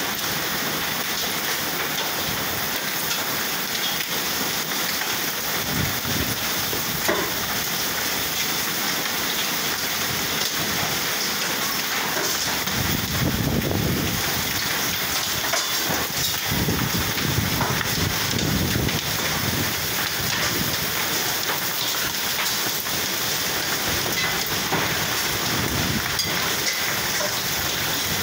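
Hailstorm: hail and heavy rain pelting down in a steady, dense hiss, with low rumbles swelling about halfway through.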